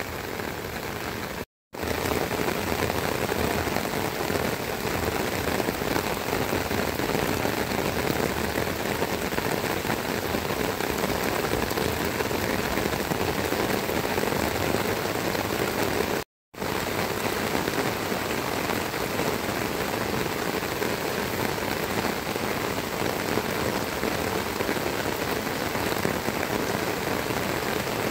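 Heavy rain falling steadily on a rice paddy and the trees around it, a dense even hiss. It drops out to silence for a split second twice, once about a second and a half in and again about halfway through.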